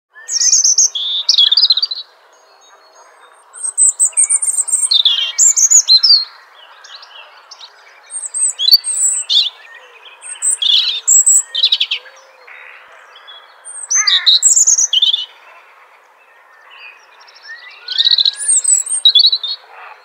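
European robin singing: about six short, high, thin phrases of quick varied warbles and trills, each followed by a pause of a second or two.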